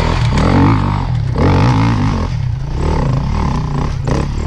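Enduro dirt bike engine revving up and down in repeated bursts as it climbs a steep rocky hill under load.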